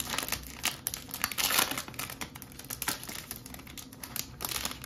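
Foil wrapper of a Topps Chrome baseball card pack crinkling and crackling as it is handled and torn open, a run of sharp crackles that is loudest about a second and a half in.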